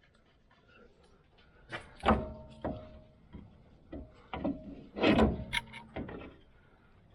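Metal tools and steering parts being handled in a shop: a series of sharp clanks and knocks, a few ringing briefly, loudest in a cluster about five seconds in.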